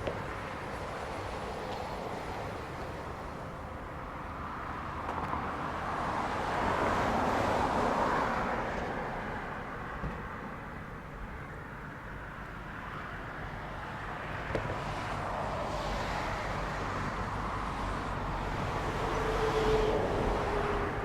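Passing road traffic: tyre and engine noise that swells and fades twice, about seven seconds in and again near the end.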